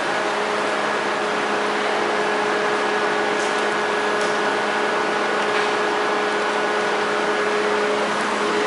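Steady machine drone with a constant hum that does not change in pitch, in the enclosed steel vehicle deck of a car ferry. A brief louder rush comes near the end.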